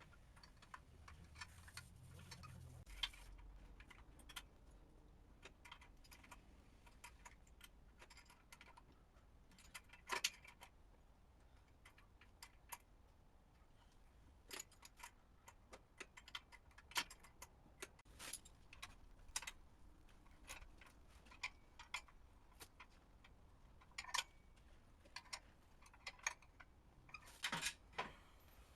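Scattered metallic clicks and clinks of a 12 mm wrench and socket working the motorcycle's exhaust bolts, irregular and mostly faint, with a short cluster of clicks near the end.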